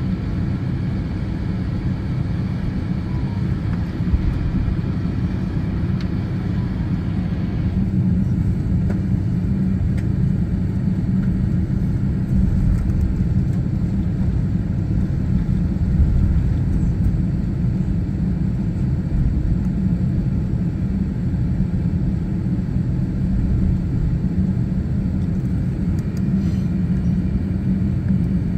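Cabin noise inside a jet airliner taxiing on the ground: a steady low rumble from the engines at taxi power. About eight seconds in, the higher hiss over the rumble drops away.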